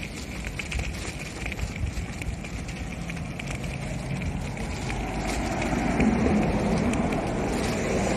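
Outdoor rush of wind and movement noise on the microphone, with scattered small clicks and rattles. A low engine-like rumble swells over the second half and is loudest near the end.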